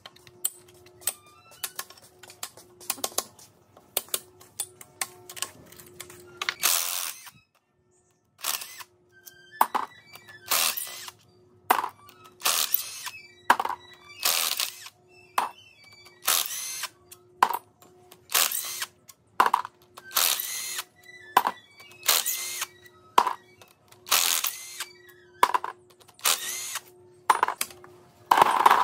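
Cordless impact wrench hammering in short bursts, about one a second, on the bolts of a burnt engine's cylinder head. The first few seconds hold light metallic clicks and taps from hand tools.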